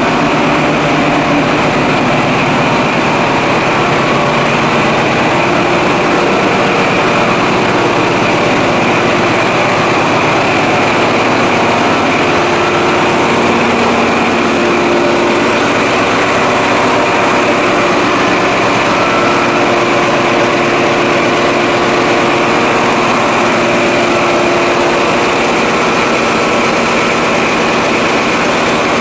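Diesel engine of an XPT train's power car running steadily close by, a loud even drone with steady tones over it.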